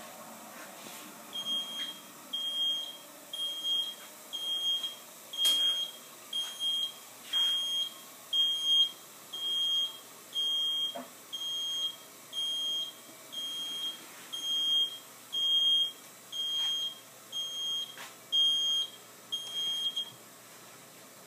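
Cleveland convection steamer's timer alarm beeping at the end of its cooking cycle: about two dozen short, high beeps of one steady pitch, a little under a second apart. The beeping stops near the end as a key on the keypad is pressed.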